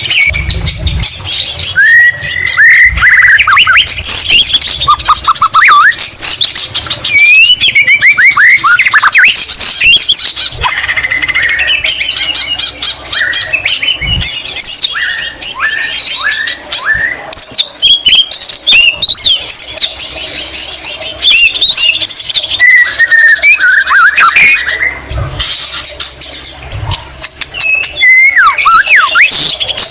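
White-rumped shama singing a loud, continuous, varied song of rising and falling whistles and rapid trills, including mimicked greater green leafbird phrases. A few dull low thumps come in between.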